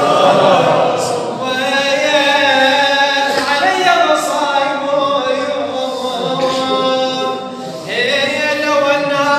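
A man's voice singing unaccompanied in a devotional recitation, with long held notes and slow melodic turns.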